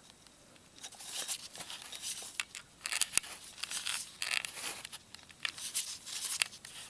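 Hands turning and handling a new spin-on oil filter on the engine: irregular short scrapes and rustles with small clicks.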